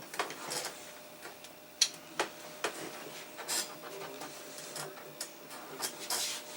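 A running desktop PC giving a faint steady hum, with irregular sharp clicks and light knocks over it.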